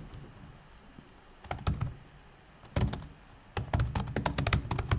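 Typing on a computer keyboard: a couple of keystrokes about a second and a half in, another near three seconds, then a quick run of keystrokes over the last second and a half.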